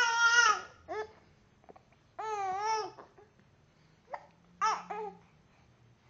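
A young child wailing in angry, high-pitched cries broken by short catches of breath and hiccups. There is a long wail at the start, another with a wavering pitch around two seconds in, and short sharp yelps near the fifth second, with quiet gaps between.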